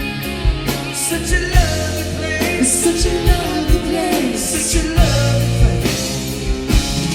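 A live rock covers band playing: drums keeping a steady beat under bass and keyboard or guitar, with a lead vocalist singing over them.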